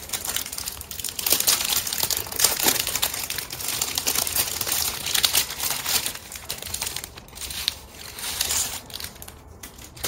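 Clear plastic packaging crinkling as it is handled and pulled open to take out metal drinking straws. The crackle is densest in the first half and softer after about six seconds.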